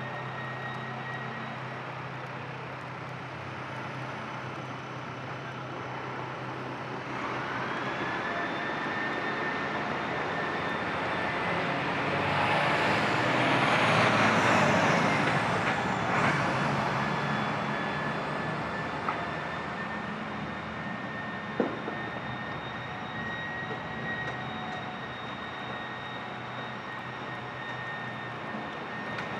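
A city tram passing close by on a snowy street: its running noise and a high electric whine build to a peak about halfway through, then fade away. Two short sharp clicks come a few seconds after the peak.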